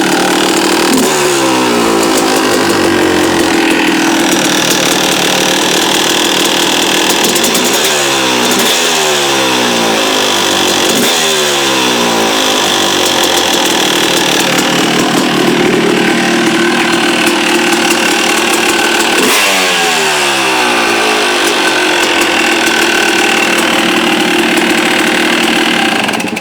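Yamaha YZ250 two-stroke single-cylinder motocross engine idling, with several short blips of the throttle that rise and fall back to idle. It cuts off at the end. The owner is asking about a noise it makes at idle, which he tags as a knock.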